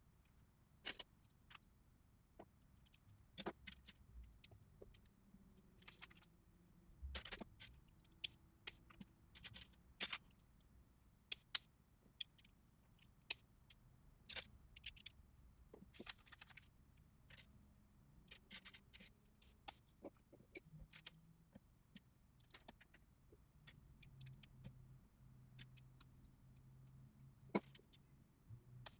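Plastic LEGO bricks clicking and clattering as they are picked up and snapped together, played at four times speed: many short, sharp clicks at an uneven pace, a few per second.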